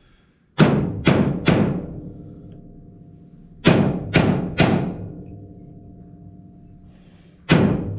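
A hammer striking a steel punch set against a John Deere 444 corn head's upper gathering-chain sprocket, trying to drive out its roll pins. There are two sets of three quick blows about half a second apart, then one more blow near the end, each leaving the metal ringing.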